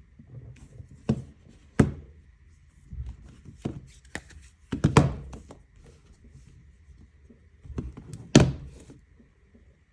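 A series of irregular knocks and thuds, about eight of them at uneven intervals, the loudest around five seconds in and near the end, over a faint steady high whine.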